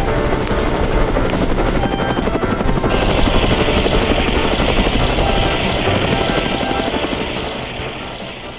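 Cartoon helicopter sound effect: a fast, steady rotor chop, over faint background music. About three seconds in a steady hiss joins it, and the sound fades near the end.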